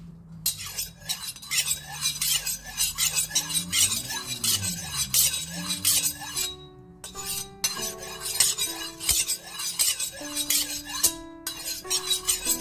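Metal kitchen knife blade drawn back and forth along a steel honing rod, a repeated scraping ring about two or three strokes a second, over background music with a stepping melody.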